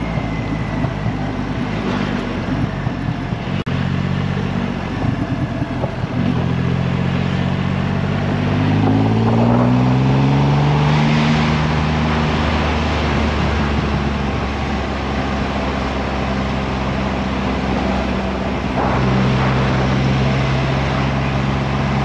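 Triumph Rocket 3's inline-three engine running at a low, steady cruise, then pulling harder about eight seconds in with a rising pitch before settling back to a steady note. Wind rushes over the microphone throughout.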